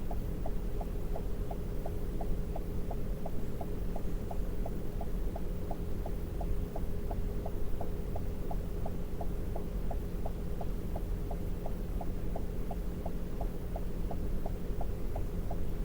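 Car cabin sound while rolling slowly at idle: a steady low engine and road rumble with a constant hum, and a regular light ticking about three times a second.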